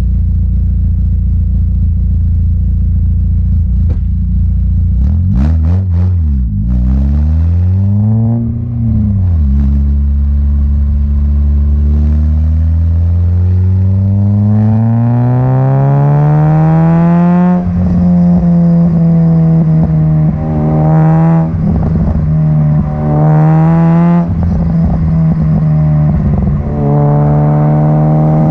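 Peugeot 106 GTi's 1.6-litre 16-valve four-cylinder engine through a decat Supersprint race exhaust: a steady low idle, two quick revs around five to nine seconds in, then a long climb in revs that drops sharply about two-thirds of the way through, followed by further short rises and falls in pitch.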